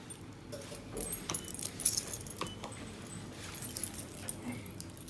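A bunch of keys jangling and clicking as they are handled, with several sharp metallic clicks, most of them between one and two seconds in.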